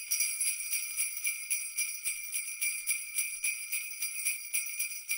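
Sleigh bells shaken in a steady rhythm, about four shakes a second, with bright jingling.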